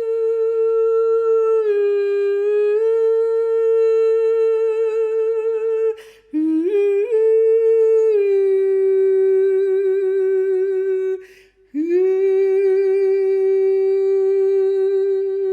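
A solo voice holding long wordless tones near one pitch, with a slight waver and small pitch steps between notes. It breaks off briefly twice, about six and eleven and a half seconds in, then slides up into the next held note.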